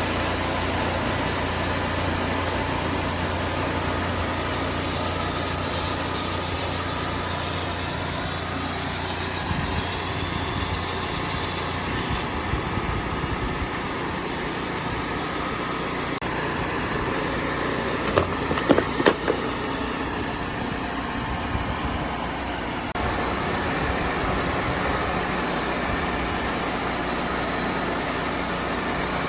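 Sawmill engine running steadily, with a few short sharp knocks about two-thirds of the way through.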